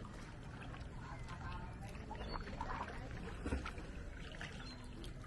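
Water splashing and trickling around a small boat under way, over a steady low rumble.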